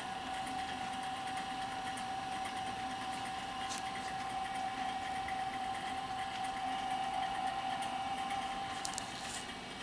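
EWAG RS2 radius and tangent grinder running with its grinding wheel spinning: a steady electric-motor whine over a lower hum, fading near the end.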